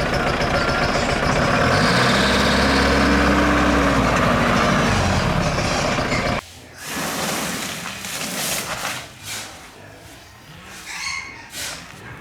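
Heavy truck engine running loudly, revving up and then back down over a few seconds. Halfway through it cuts off abruptly, and quieter scattered knocks and clatter follow.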